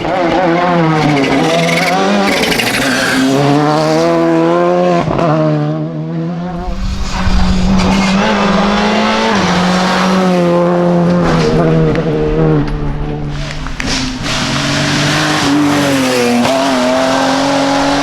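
Rally car engine revving hard at full stage pace, its pitch climbing through the gears and dropping sharply on lifts and gear changes, with a burst of rough noise about seven seconds in.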